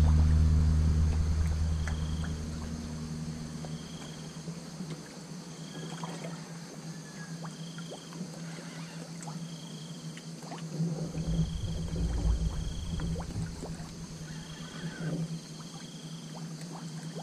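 A boat's engine droning low and fading away over the first few seconds, leaving a faint steady hum. Through the rest, a short high call repeats about once a second, with a spell of low rumbling about two-thirds of the way through.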